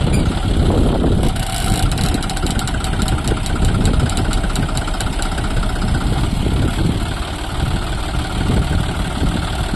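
John Deere tractor diesel engines running steadily. A rapid run of clicks is heard from about a second in until about halfway through.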